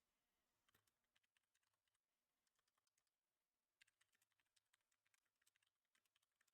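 Near silence broken by faint, irregular clicks in quick clusters, about a second in and again from near the middle on.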